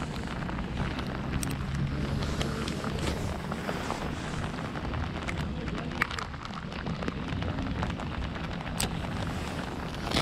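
Steady rain pattering on a waterproof jacket close to the microphone, with many small scattered ticks of drops over a low rumble and a sharper tick about six seconds in.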